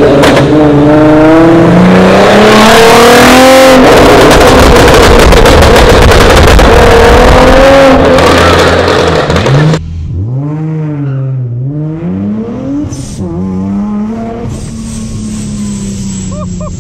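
Hyundai Genesis coupe accelerating hard past the microphone, very loud, its engine note climbing through the revs with a rapid crackle. About ten seconds in it cuts to inside the supercharged Infiniti G35's cabin: the 3.5-litre V6 rising and falling through the gears, with a high supercharger whine falling in pitch near the end.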